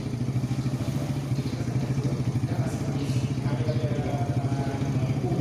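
A small engine running steadily at idle, with a rapid, even pulse.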